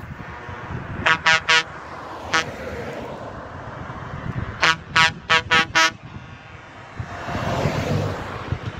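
Truck air horns sounding in short toots: three quick toots about a second in, a single toot a second later, then five quick toots around the middle, over steady road noise. Near the end a car drives past close by.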